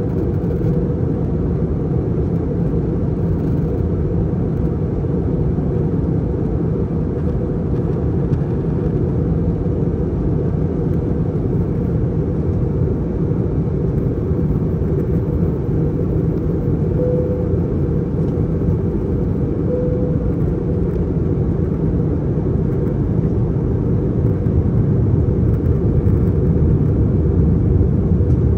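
Steady cabin noise inside an Airbus A321 airliner in flight on descent: a low rush of airflow and engine drone. It grows slightly louder near the end.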